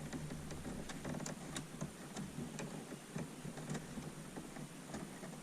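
Scattered light clicks and taps of wires and small parts being handled inside a computer case, over a steady low hum.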